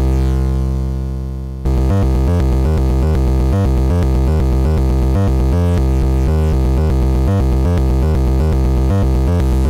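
Modular synthesizer voiced by the Modbap Osiris wavetable oscillator: one held note fades away for about a second and a half, then a fast sequence of pitched notes with deep bass plays.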